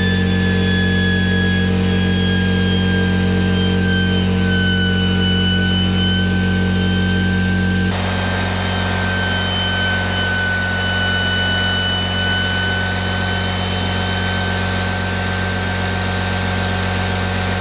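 Homemade centrifugal-compressor turbojet spinning with a steady high whine that sinks slowly in pitch and then holds, over a steady low hum. The impeller has overheated, and kerosene is being poured onto the bearings to cool them.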